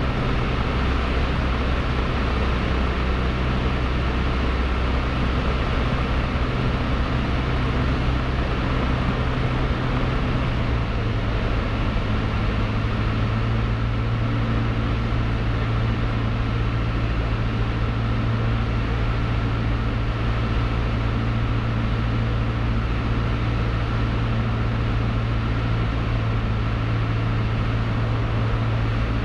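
Cessna 152's four-cylinder Lycoming O-235 engine and propeller in cruise flight, heard inside the cockpit as a steady, loud drone. The low engine note shifts about ten seconds in, then holds steady again.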